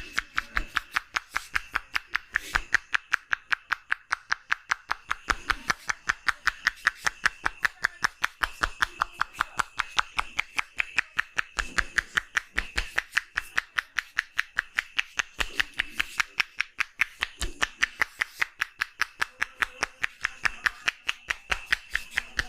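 Rapid, even slaps of a barber's hands in a percussive massage, about five strikes a second without a break.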